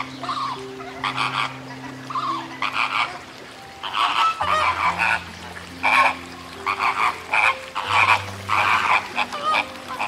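A flock of flamingos calling: many short, goose-like honks overlapping in clusters every second or so.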